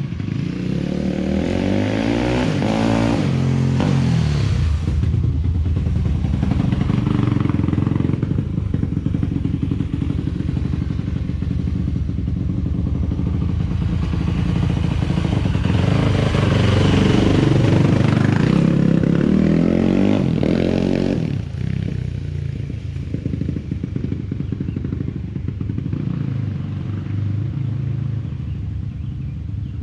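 2001 Yamaha YZ426F's single-cylinder four-stroke engine running after a cam chain replacement, revved up and back down twice, near the start and again about two-thirds through, running lower in between and afterwards.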